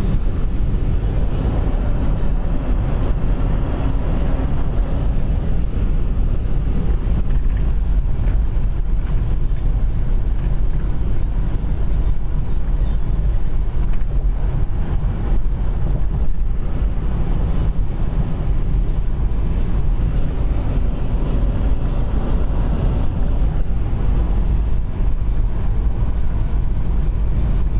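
Steady low rumble of road and wind noise inside a car cruising at freeway speed.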